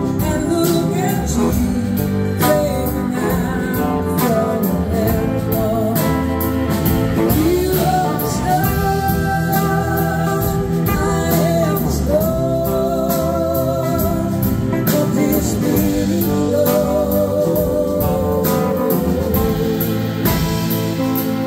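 Live band playing a slow soul-blues song: a woman sings the lead with vibrato over electric guitars, keyboards and drums keeping a steady beat.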